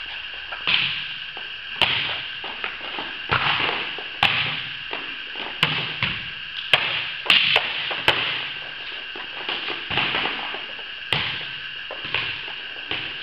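Volleyballs being struck and bouncing on the court, a dozen or so sharp smacks at irregular intervals, each echoing briefly in the large gym.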